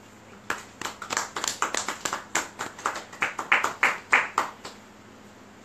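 A small audience applauding at the end of a poem: a few people's separate hand claps, starting about half a second in and stopping after about four seconds.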